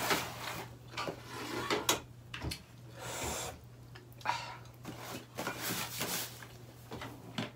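Close-up eating sounds of roast chicken being chewed, with irregular smacks, clicks and rustles, one denser rustle about three seconds in.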